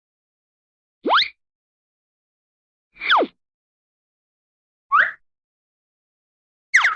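Cartoon zip sound effects: four quick pitch glides about two seconds apart, the first sweeping up, the second sweeping down, the third a short rise, the last sweeping down.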